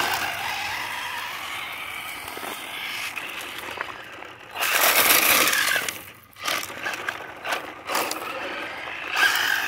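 Remote-control 1970 Dodge Charger model car driving fast, its small motor whining and tyres hissing, louder as it passes about five seconds in. Near the end there is a scrape as the car's rear plate hits the ground.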